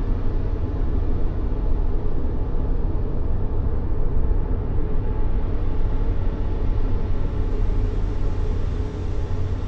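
Steady, unbroken rumbling white noise, heaviest in the low end and fading toward the highs, with no change or events: a continuous sleep-noise track meant to mimic womb sounds and settle a crying baby.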